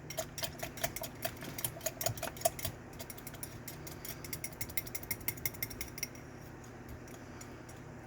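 Stainless steel mini whisk beating egg and milk in a microwave egg cooker, its wires clicking against the cup's sides in a quick steady rhythm of about five strokes a second. The strokes grow softer after a couple of seconds and stop about six seconds in.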